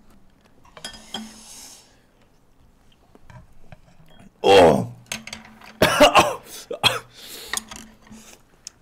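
Utensils scraping and clinking in a frying pan as noodles are served, with a man coughing and clearing his throat loudly a few times, starting about halfway through.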